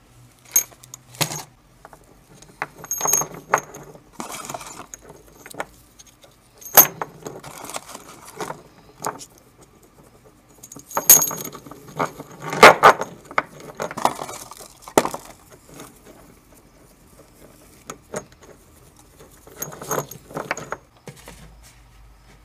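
Galvanized steel flat washers clinking and jingling against one another as they are tipped out of their box and handled on a wooden bench: a run of sharp clicks and short metallic rings, loudest in a cluster about eleven to thirteen seconds in.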